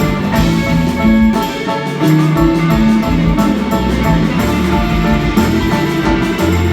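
Live band playing without vocals: guitars, keyboard, bass guitar and drum kit.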